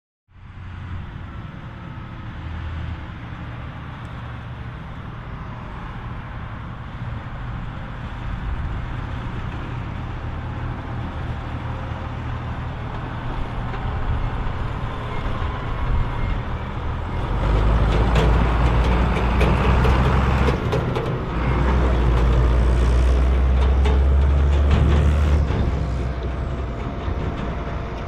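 Case IH 1455 XL tractor's six-cylinder diesel engine running, getting louder and heavier about two-thirds of the way in, then easing off near the end.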